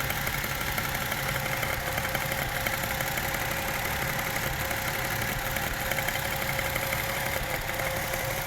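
Toyota 1JZ-GE 2.5-litre inline-six idling steadily with a fast, light knocking and clicking from the engine, a knock the owner finds suspicious and unhealthy; others have advised checking the camshaft fastening.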